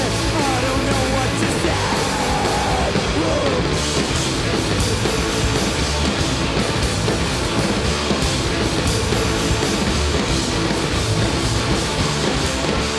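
Rock band playing live at full volume: distorted electric guitars, electric bass and drum kit in a dense, loud mix, with a few sliding notes in the first seconds.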